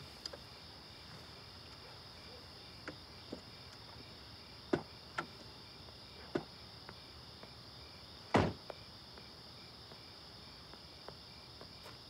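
Crickets chirping steadily, with a few scattered short knocks, the loudest about eight seconds in.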